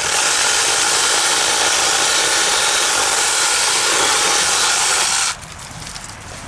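Kimo 6-inch cordless mini chainsaw running and cutting wood: a loud, steady, high whine of the electric motor and chain that cuts off about five seconds in.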